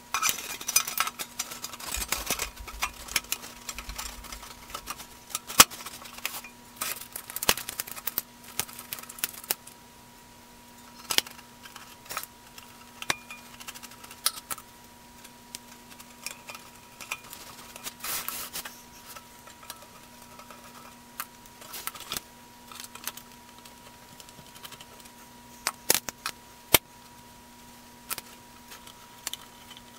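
Metal case of an old battery charger being handled and its cover fitted back on: irregular sharp clicks, taps and light clatters of metal on metal, busiest in the first half, over a faint steady hum.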